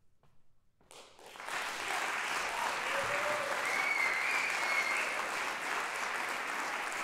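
Audience applauding. The clapping begins about a second in and swells quickly to a steady, full level.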